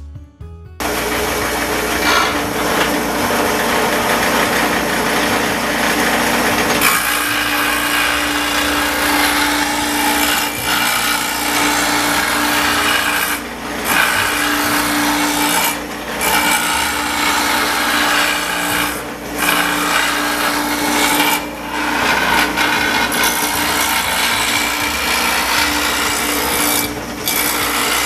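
Foley Belsaw Sharpall grinding wheel grinding the bevel on a steel wood-chipper flail blade: a loud, steady grinding hiss that starts about a second in, with a steady hum joining about seven seconds in. The grinding dips briefly every few seconds.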